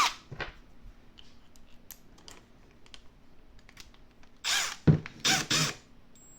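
A Milwaukee M12 Fuel brushless drill/driver fitted with its right-angle attachment winds down from a brief trigger pull. Faint handling clicks follow, then two short rattling bursts from the tool, with a sharp click between them near the end.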